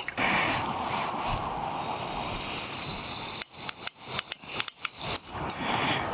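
Portable gas camping stove: a steady hiss of gas and wind, then, about halfway through, a quick run of sharp clicks from the stove's igniter switch, which is giving no spark in the strong wind.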